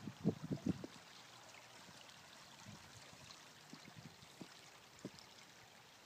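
Shallow rocky stream trickling steadily over stones, with a quick cluster of dull knocks in the first second.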